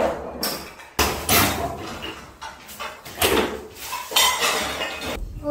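Loud crashes and clatter of interior apartment demolition work, hard materials being struck and falling, about one impact a second, each with a short rattling tail.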